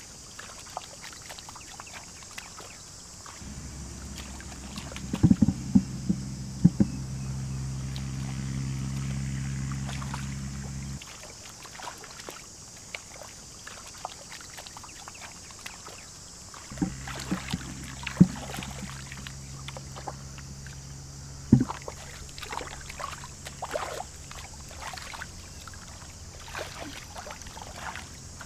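Hands splashing and groping in shallow muddy water, with sharp slaps and knocks now and then. A steady high insect buzz runs throughout, and a low motor hum comes in twice, each time for several seconds.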